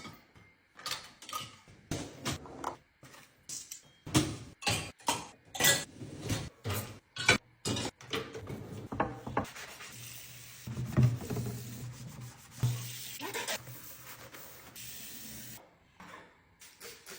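Household cleaning sounds. First comes a quick run of knocks, clatters and rubbing as things are handled and wiped. Then a steady hum with a hiss runs for about six seconds and cuts off suddenly.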